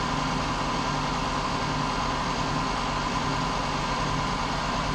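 Steady mechanical hum with a faint high whine, unchanging throughout, like a fan or motor running.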